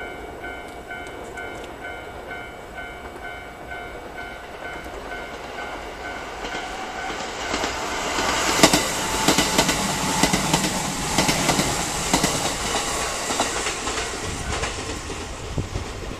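A Japanese level-crossing warning bell rings in an even, repeating beat. About seven seconds in, a freight train hauled by a DD51 diesel-hydraulic locomotive passes close by. The loud rumble and clack of its wheels over the rail joints drown out the bell, then ease off near the end.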